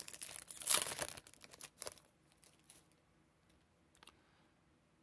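Foil wrapper of a trading card pack torn open and crinkled by hand. The noise is loudest about a second in and thins out over the next second into a few faint taps.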